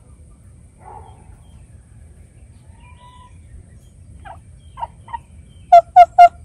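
Turkeys calling: a few soft calls about four seconds in, then three loud, sharp calls in quick succession near the end.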